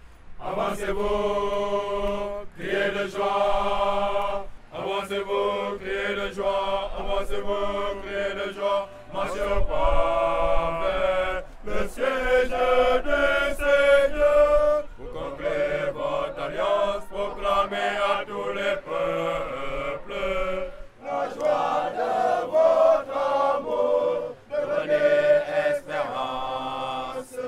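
Church choir singing a sacred song, in held sung phrases with short breaks between them.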